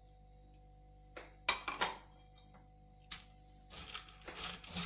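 Plastic spatula tapping a few times against a nonstick frying pan, then stirring raisins in hot ghee with an uneven scraping and rustling through the last second or so.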